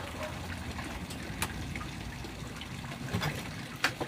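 Water running in a steady trickle, with a few sharp clicks over it, about a second and a half in and again near the end.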